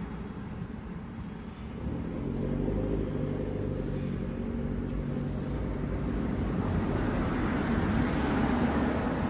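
A motor vehicle's engine running with a steady low hum that grows louder in the last few seconds.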